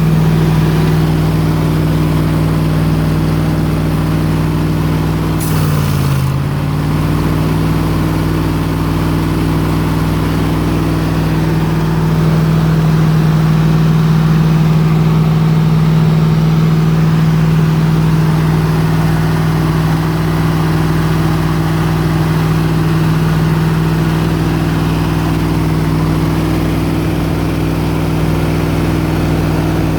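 Engine of the 302 air compressor running steadily. About five seconds in, a short hiss sounds and the engine speed dips briefly, then recovers.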